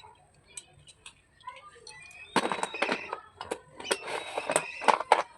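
Slate pencils clicking and crackling: a rapid, irregular run of sharp cracks that starts about two seconds in.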